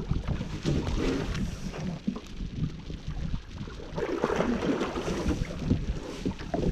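Wind buffeting the microphone over irregular knocks, handling noise and water sounds in a fishing boat as a large lake sturgeon is hauled out of the river.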